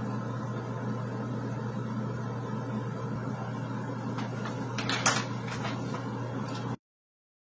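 Steady electric hum of a running kitchen appliance, with a brief crinkle and clatter of packaging and a plastic container being handled about four to five seconds in, loudest a little after five seconds. The sound cuts off suddenly near the end.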